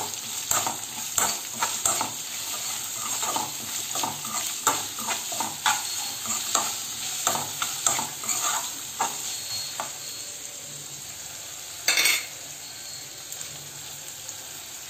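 Sliced green chillies sizzling in hot oil in an aluminium kadai while a metal spatula stirs and scrapes against the pan. The scraping stops about ten seconds in, leaving a steady sizzle, and one short loud noise comes about twelve seconds in.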